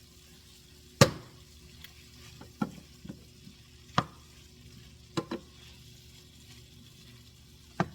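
A utensil knocking against a pan while stirring a browning meat filling, over a faint sizzle. About seven sharp knocks at uneven intervals, the loudest about a second in.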